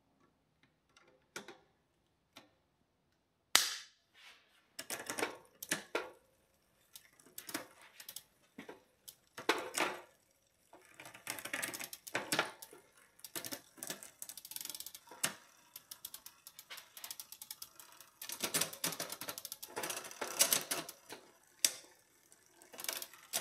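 Bicycle drivetrain turned by hand in a repair stand: after a few faint ticks and a sharp click about three and a half seconds in, bursts of rapid clicking as the rear freewheel's pawls ratchet and the chain runs through the rear derailleur.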